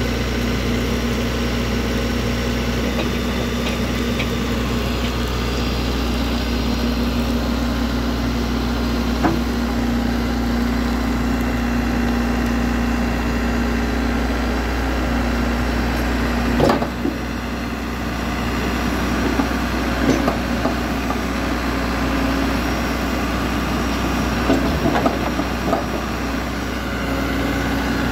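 Komatsu WB93R-2 backhoe loader's diesel engine running steadily while the backhoe arm is worked hydraulically, with a held whine over the engine. A few knocks from the machine, the sharpest about halfway through, where the low rumble drops slightly.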